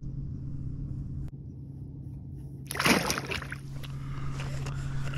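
Redfish splashing at the surface once as it is released from the hand beside a kayak, about three seconds in, over a steady low hum.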